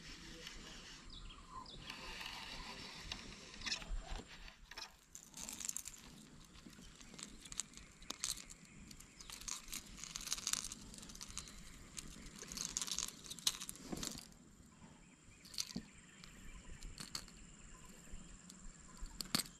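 Faint rustling and clicks from a baitcasting rod, reel and lure being handled with gloved hands, coming in irregular short bursts.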